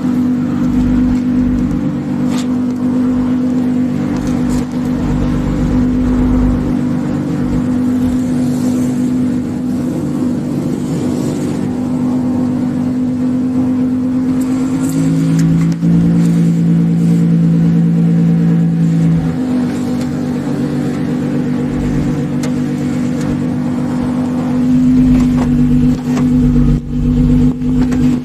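Car engine running steadily, a pitched hum whose tone shifts for a few seconds about midway through.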